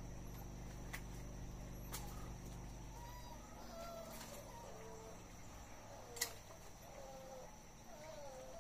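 Chickens clucking, a string of short wavy calls starting about three and a half seconds in, over a steady high insect drone. A few sharp clicks stand out, the loudest about six seconds in.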